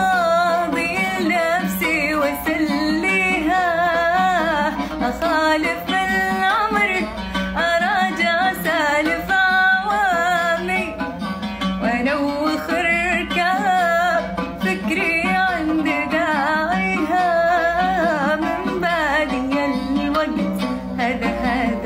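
A woman singing an Arabic song in long, wavering melodic lines over plucked-string accompaniment.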